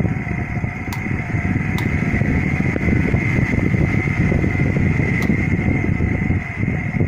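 Cadence air circulator fan running with a loud, steady rattling rumble and a whine from its motor. The noise comes from worn motor bearings or bushings that lubrication will not cure and that need replacing.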